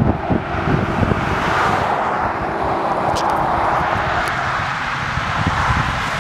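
Cars passing on a highway: steady tyre and road noise that swells as a car goes by about one to two seconds in, over an irregular low rumble.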